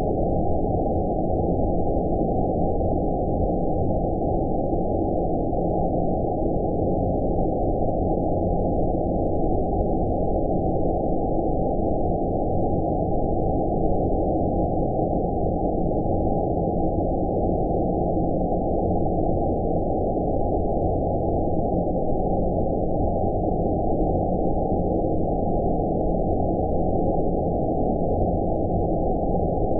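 Steady, deep rumbling noise with all the treble cut away above about 1 kHz: a constant 'outer space' sleep-noise track that does not change.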